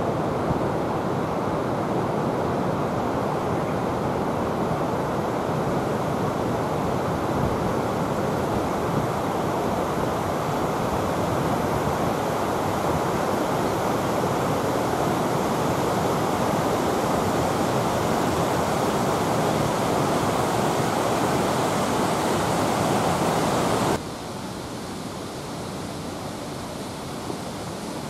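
Steady rush of running water, even and unbroken; about 24 s in it drops suddenly to a quieter level.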